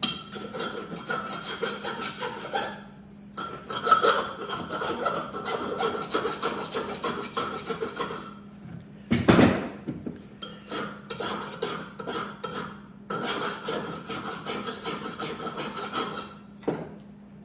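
Metal rasping as the burr is taken off the freshly drilled hole in a steel sawmill log stop, in several long passes with short breaks. There is a loud knock about nine seconds in.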